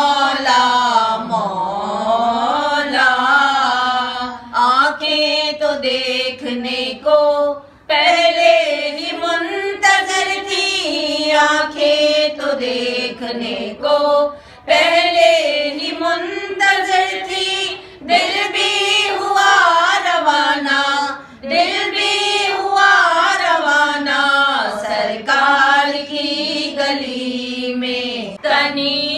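Two women singing an unaccompanied Urdu naat, a devotional hymn in praise of the Prophet, in long held melodic lines with short pauses for breath between phrases.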